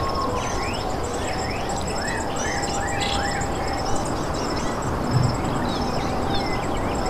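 Forest ambience: birds calling with short, rising chirps over a steady high insect trill that pulses rapidly and never stops.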